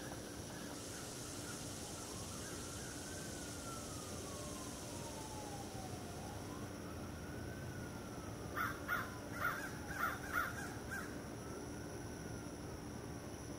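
An emergency siren wailing faintly, its pitch rising quickly and falling slowly, over and over. A crow caws about six times in quick succession a little past the middle.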